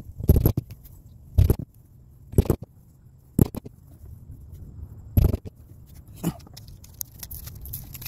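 Six sharp knocks, roughly one a second with a longer pause before the fifth, followed by faint rustling near the end.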